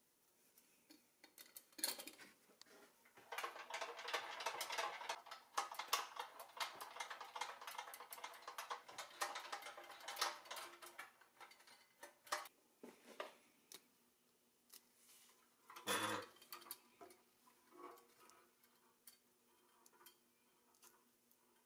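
Small parts of a pressed-steel Tonka toy crane clicking and rattling as they are handled and fitted together, with a dense run of rapid metallic clicking in the first half and a single louder knock about two thirds of the way through.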